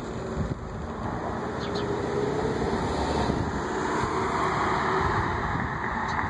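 A road vehicle passing on the street, its noise building over a few seconds and easing near the end.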